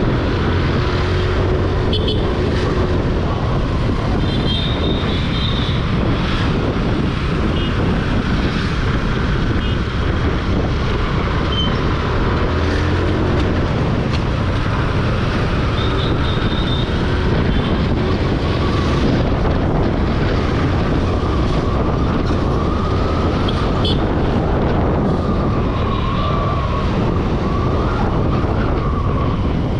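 Steady road noise from riding a TVS Jupiter scooter: air rushing over the microphone, with the scooter's engine and tyres running underneath and traffic around, holding an even level throughout.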